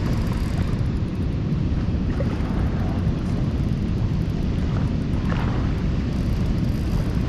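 Steady low rushing noise of wind buffeting the microphone over the distant roar of water pouring through the dam.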